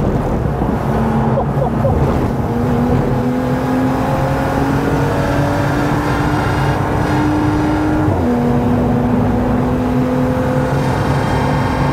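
BMW M135i race car's N55 turbocharged straight-six, heard from inside the cabin, pulling hard under full throttle. Its note rises steadily, drops when the driver upshifts about eight seconds in, and then climbs again.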